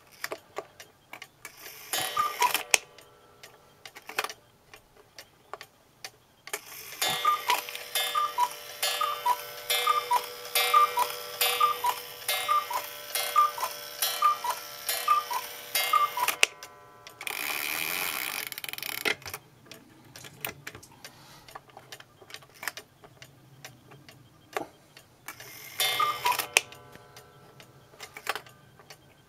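German 30-hour cuckoo clock ticking, its bellows sounding the two-note cuckoo call: one call early on, then a run of about eleven calls, less than a second apart, over the whirr of the strike train, striking the hour. A brief rasping burst follows the run, and a single call comes near the end, as for the half hour.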